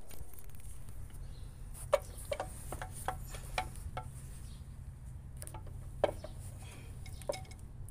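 Metal clinking and knocking as a truck clutch booster and its mounting bracket are handled and offered up to the chassis: about eight sharp clinks spread out, the loudest about two seconds in and again about six seconds in, over a steady low rumble.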